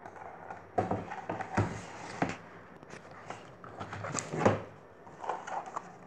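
A picture book being handled: irregular paper rustling and soft knocks and bumps as the book shifts, the loudest bump about four and a half seconds in.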